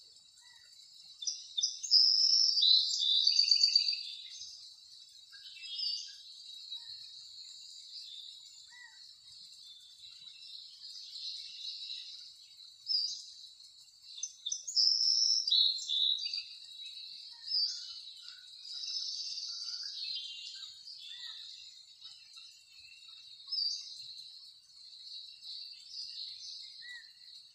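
Birds chirping and trilling in short, high-pitched phrases that come and go, over a faint steady high hum.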